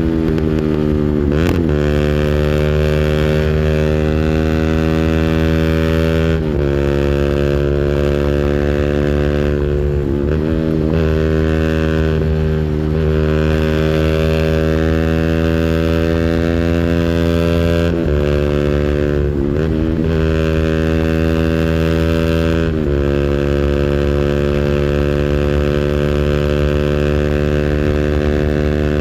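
200cc engine held at its rev limiter, a steady high-revving drone whose pitch dips briefly and climbs straight back several times.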